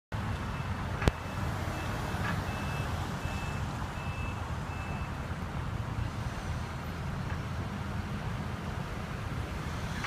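Road traffic: cars moving and turning through a busy intersection, with a steady low engine and tyre rumble. A sharp knock comes about a second in, followed by a run of about five short, high electronic beeps between about two and five seconds in.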